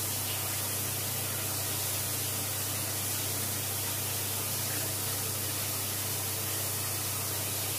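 Steady hiss with a constant low hum underneath: the running noise of aquarium tank equipment, pumps and moving water.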